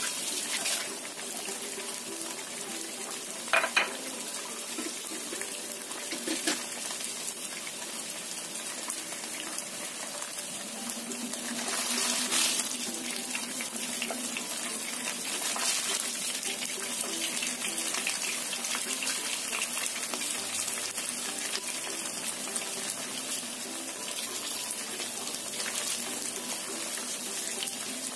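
Tempe and tofu pieces coated in yellow spice paste frying in oil with a steady sizzle. A couple of sharp clicks come a few seconds in, and the sizzle swells louder about twelve seconds in.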